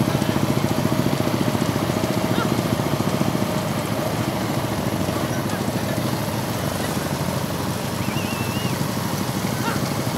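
Motorcycle engines running steadily at road speed close by, a fast low chugging with wind rushing over the microphone.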